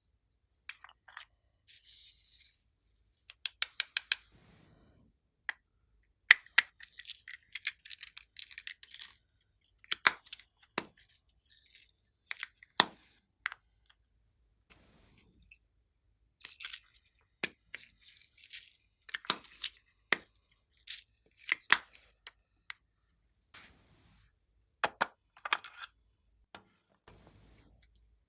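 Clear slime being squished and worked by hand, giving irregular sharp wet pops and clicks, some in quick runs, with short hissy crackles between them.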